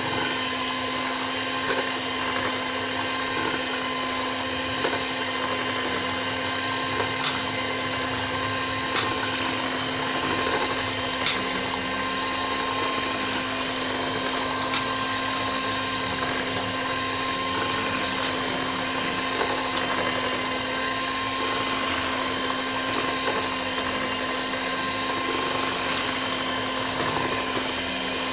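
Handheld electric stick blender running steadily in a bowl of soap batter, mixing oils with sodium hydroxide (lye) solution. A steady motor hum with a few sharp clicks scattered through.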